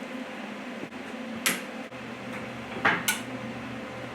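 Sharp metallic clinks of steel tools against the liner puller's parts: one about a second and a half in, then two close together around three seconds.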